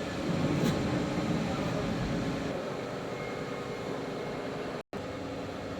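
Steady machine hum with a constant low drone, with indistinct voices in the first second. The sound cuts out completely for a moment about five seconds in.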